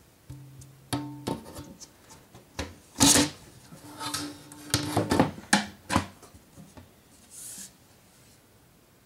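Metal knocks, clicks and scraping as the Mac Pro's aluminium side panel is fitted back onto the case. One loud knock comes about three seconds in and a cluster of knocks around five to six seconds, with two short low hums early and midway.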